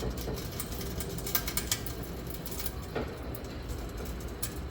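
A few light metallic clicks and knocks, spaced a second or so apart, over a low steady background: parts and tools being handled during work on the front suspension.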